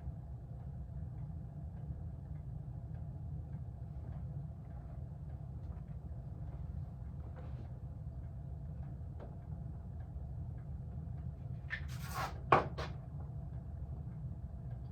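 Ceiling fan motor running with a steady low hum. About twelve seconds in, a brief papery rustle and two sharp knocks: an unframed print moved by the fan's draught.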